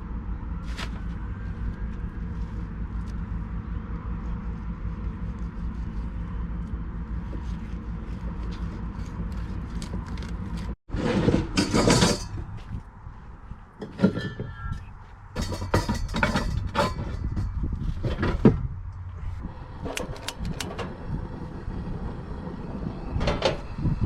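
A steady low engine hum for about the first half. After a brief break, a run of knocks, clunks and rattles from gear and doors being handled.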